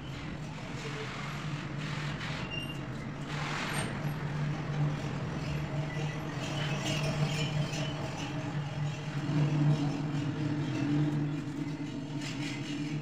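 A steady low mechanical hum, engine-like, with a brief hiss about three and a half seconds in.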